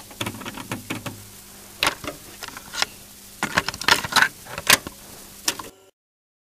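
Irregular clicks and knocks, some sharp and some duller, over a steady hiss and low hum; they all cut off suddenly near the end.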